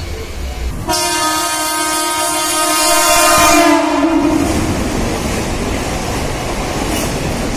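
Train horn sounding once, starting about a second in and held for about three seconds, over the loud rushing and rumbling of a train running on the line.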